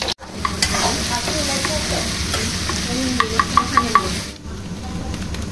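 Chopped garlic sizzling in hot refined oil in a pan as it is stirred, with a quick run of sharp taps of a utensil on the pan a little past the middle. The sound cuts out briefly just after the start and again past four seconds.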